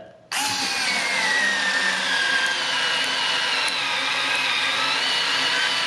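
Worx WX255L semi-auto cordless screwdriver driving a wood screw into pre-drilled plywood. Its small motor and gearbox start a moment in and run steadily with a high whine, the pitch sagging a little as the screw bites.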